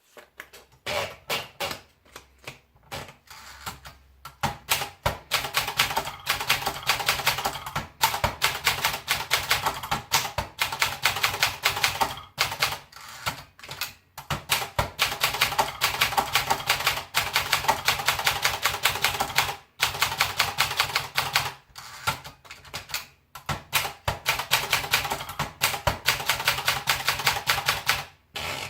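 Olympia Splendid 66 manual portable typewriter being typed on: rapid runs of sharp key strikes, several a second, broken by brief pauses.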